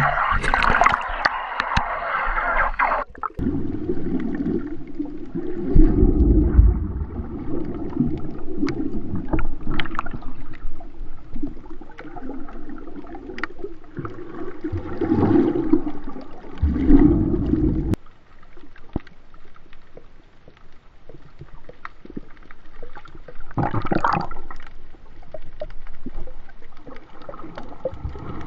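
Sea water heard by a snorkeller: splashing at the surface, then about three seconds in the sound turns muffled as it goes underwater, leaving low sloshing and gurgling with scattered small clicks.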